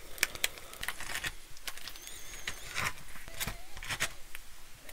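Fingers tearing apart a slab of cheesy bread, the baked crust crackling in a run of small, irregular crunches and ticks.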